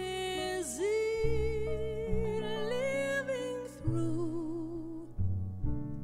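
Slow big-band jazz ballad: a single melody line held with vibrato, sliding down about a second in, over piano chords and plucked double bass.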